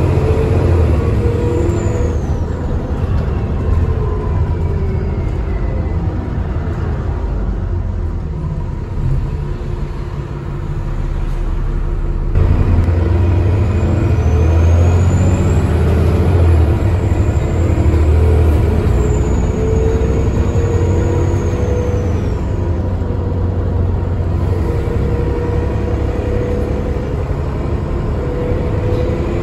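Engine of an ALX400 double-decker bus heard on board, with a high turbo whistle that rises and falls several times. The engine gets louder about twelve seconds in as the bus pulls away.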